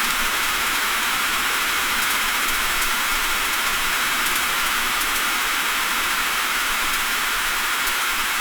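Freezing rain falling on a car: a steady, dense hiss with faint light ticks of ice scattered through it.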